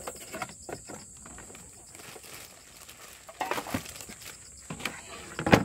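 Camping gear being packed away: scattered clicks, rattles and knocks of things handled on a wooden table and stowed in a plastic storage crate, with a cluster of louder knocks a little past three seconds in and one loud knock near the end.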